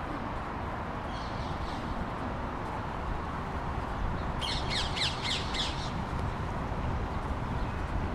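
A bird calls in a quick run of about eight sharp, high notes about four and a half seconds in, with a fainter short call a few seconds before. Under it runs the steady hum of the street.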